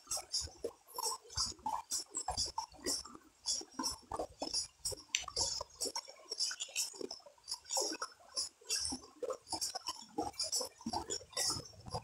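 Shallow creek water gurgling and splashing over rock ledges in quick, irregular bursts.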